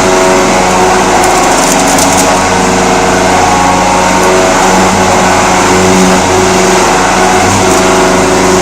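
Vertical machining center milling a pocket: the spindle and end mill cutting metal with a loud, steady, multi-toned whine.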